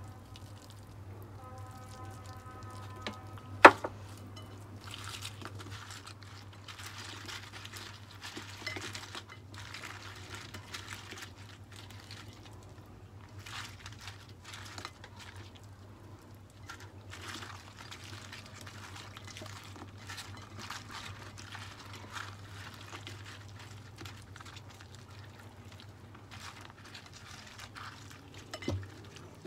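Crispy batter-fried shrimp being tossed by a gloved hand with a soft salted egg yolk coating in a glass dish: irregular rustling and squelching, with one sharp knock about three and a half seconds in. A steady low hum runs underneath.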